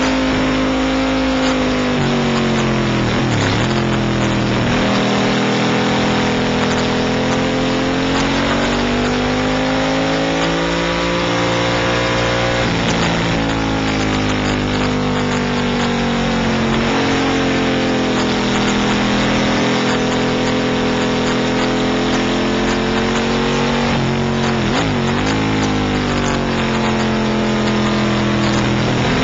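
Racing motorcycle engine heard onboard at race pace, its pitch climbing under acceleration and sagging into corners, with three brief sharp dips in pitch. Steady wind rush over the microphone runs underneath.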